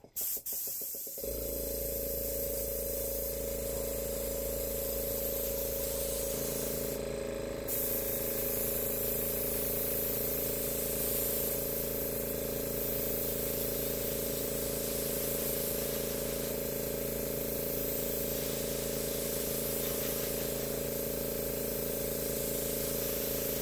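Airbrush blowing a steady hiss of air over a steady motor hum, starting about a second in. It is spreading wet acrylic paint across a canvas in a Dutch-pour blowout.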